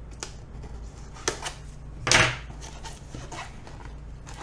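A knife blade slitting the seal on a small cardboard box, then the cardboard being handled as the box is opened. It is a few short scrapes and clicks, with one louder scrape about two seconds in.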